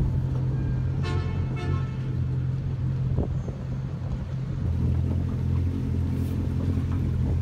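Outboard motor of a Yamaha 190 FSH center-console fishing boat running steadily with a low hum. About a second in there are two short high-pitched cries.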